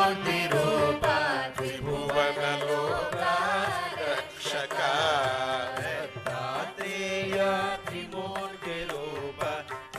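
Devotional bhajan music in Carnatic style: a winding, ornamented melody over a steady drone, with light percussion.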